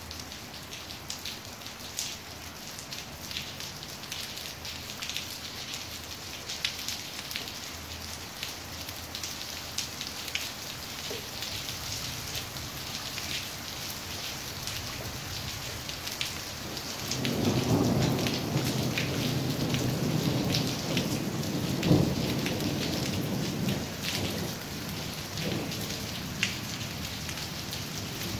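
Steady rain falling, with single drops clicking close by. A little past halfway, thunder rumbles in and swells for several seconds, with one sharp crack at its loudest, then fades.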